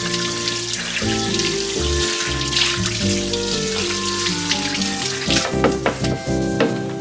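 Light background music over a kitchen tap running with a steady hiss of water, and a few quick clicks of containers or dishes knocking together near the end.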